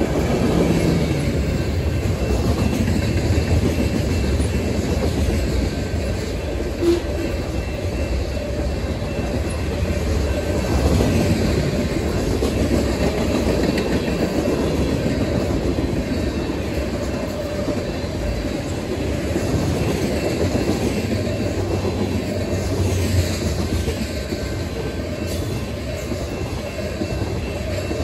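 Freight train cars, covered hoppers and then tank cars, rolling past close by: a steady, mostly low rumble of steel wheels on the rails that goes on unbroken.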